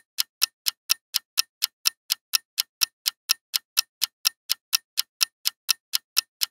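Countdown-timer clock ticking sound effect: fast, even ticks, about four a second, counting down the time left to answer a quiz question.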